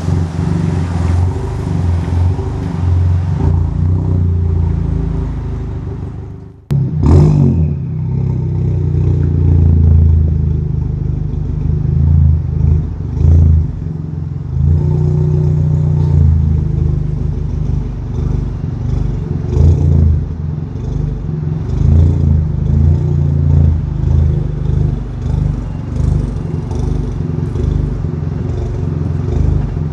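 Chevy Cruze engine and exhaust running loud while driving, swelling and easing with the throttle. About seven seconds in the sound drops away briefly and comes back suddenly.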